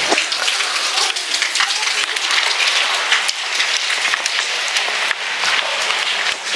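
Steady rain falling on roofs and paving, with many scattered drop hits.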